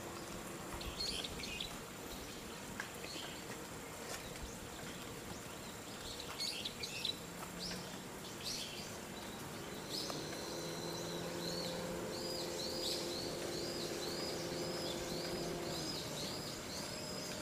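Small birds chirping in short scattered calls, then one bird repeating a quick arched call about two to three times a second through the second half. A faint steady low hum sits beneath that run of calls.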